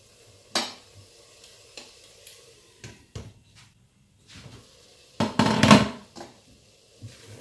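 Glass pot lid clinking against a stainless steel pot: a short click about half a second in as it goes on, and a louder clatter about five seconds in as it is lifted off and set down.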